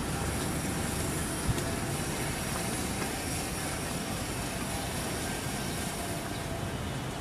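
Steady low rumbling background noise at an even level, with one sharp click about a second and a half in.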